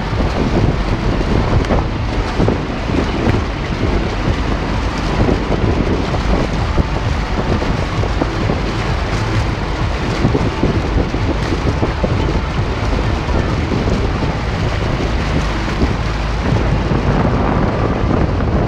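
A car's front wheel ploughing through deep flood water, churning and throwing up a bow wave: a continuous loud rushing splash.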